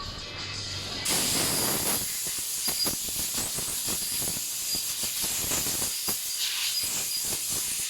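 Compressed air blowing: a loud, steady hiss that starts about a second in, with scattered clicks and knocks through it.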